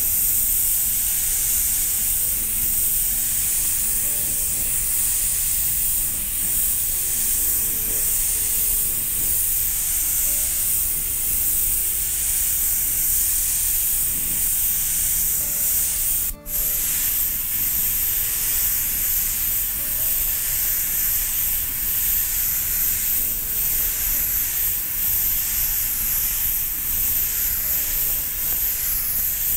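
Airbrush spraying acrylic paint: a steady hiss of air, broken once by a brief stop about halfway through before it starts again.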